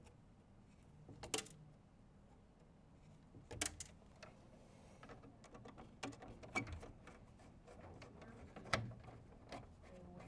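Faint, scattered clicks and taps of hand tools working on wiring: cutters trimming a conductor, then an insulated screwdriver on the terminal screws of an LED driver.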